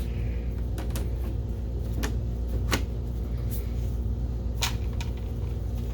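Plastic top cover of a projector being fitted and seated: several short sharp clicks and knocks spread over a few seconds, over a steady low hum.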